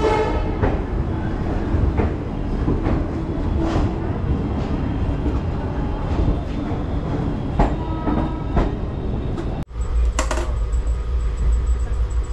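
Shramjeevi Express passenger train running through a station, a steady low rumble of the wheels with a few sharp clacks over the rail joints. About ten seconds in it cuts to inside the moving coach, where the low rumble is steadier.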